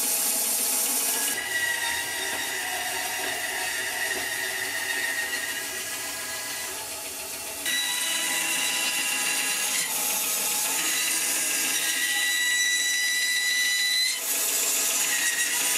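Record Power bandsaw running and cutting into a lime-wood blank: a steady hissing whine whose tone shifts a few times as the wood is fed into the blade.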